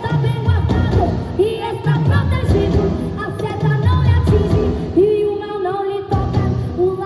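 Live Christian worship music: a female gospel singer singing with a church band of keyboard, bass and drums.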